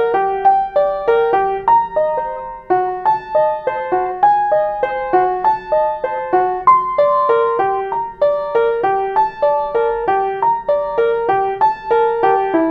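Baldwin upright piano played solo: a flowing stream of broken-chord figures, several notes a second in the middle register, with a brief dip in loudness about two and a half seconds in.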